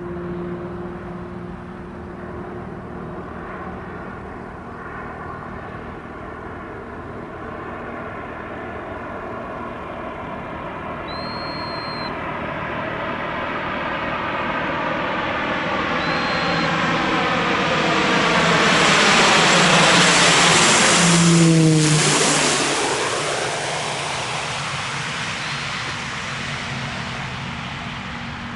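A propeller aircraft flying past low. Its engine and propeller sound builds to a peak about twenty seconds in, the pitch drops sharply as it passes, and it fades away.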